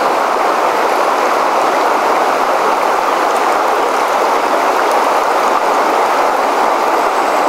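River water rushing steadily, the current flowing fast over a broken, rippling surface.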